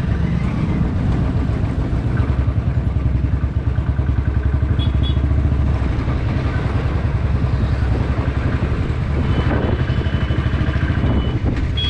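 Motorcycle engine running steadily under way, with a continuous low engine beat.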